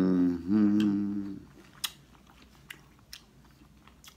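A man's low, drawn-out 'mmm' of enjoyment, held in two parts over about the first second and a half, then chewing of crab meat with scattered small mouth clicks and smacks.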